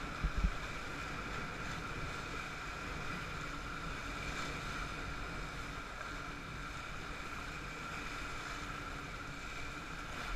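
Steady rush of river whitewater around a raft running riffles, with a few low thumps just after the start.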